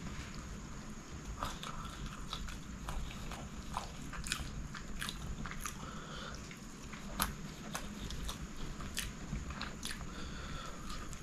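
Close-up chewing of chicken kottu (chopped roti stir-fried with chicken and vegetables), with many short wet mouth clicks and smacks at irregular intervals.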